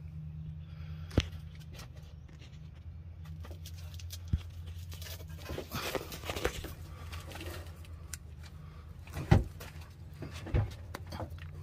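Scattered sharp clicks and rustling from hands handling a plastic sensor wiring connector, over a steady low hum. The loudest clicks come about a second in and again near the end.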